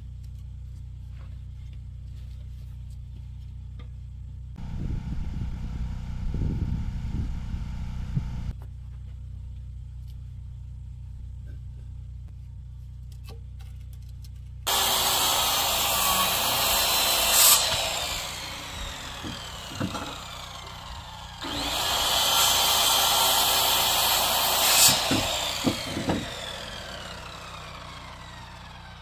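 Power saw cutting wood twice. Each cut starts suddenly, runs about three seconds, and is followed by the blade winding down with a falling whine. Earlier there is a lower, duller machine sound for about four seconds, over a steady low hum.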